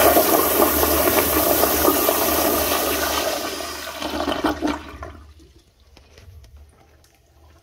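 1.6-gallon Crane Whirlton siphonic toilet flushed by a commercial flushometer valve: a loud rush of water through the bowl that dies away about four to five seconds in.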